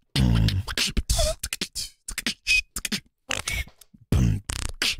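Human beatboxing freestyle: a fast run of mouth-made kick, snare and click sounds, opening on a low hummed bass note and with a brief high whistle-like tone midway.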